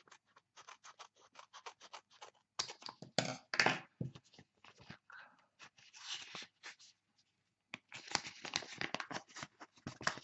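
Scissors cutting the end off a paper envelope, with paper handling and rustling: a string of short crisp snips, loudest about three seconds in and again from about eight seconds on.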